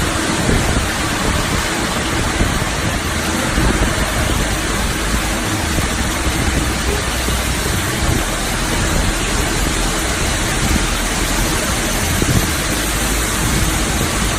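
CNC lathe running in operation: a steady, dense hiss with a faint low hum underneath.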